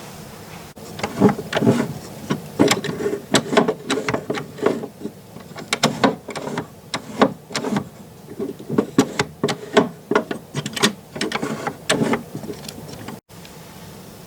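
Irregular wooden clicks and clacks from the key mechanism of an antique barrel organ being worked by hand, with no pipe notes sounding. Some keys stick and do not return to their rest position.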